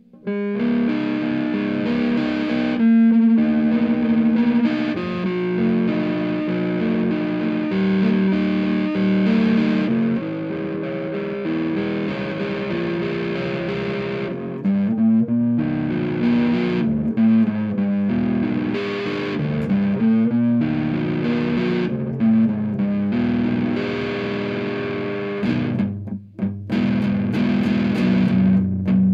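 Reville MV-X electric guitar on its rhythm (neck) P90 pickup with the tone knob rolled off, played through a Monoprice 15-watt tube amp with the gain at maximum: distorted chords and single-note riffs, with a few short breaks in the playing.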